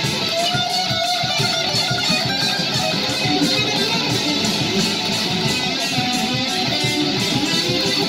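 Live rock music with electric guitar up front, playing steadily at a constant loudness.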